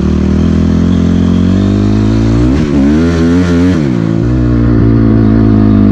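2006 Honda CRF250R's single-cylinder four-stroke engine running under the rider, with the throttle blipped up and back down a few times midway before it settles to a steady pitch.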